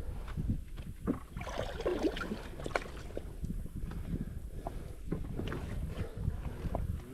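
Wind rumbling on the microphone over water splashing and small knocks around a small boat, with a louder burst of splashing about a second and a half in.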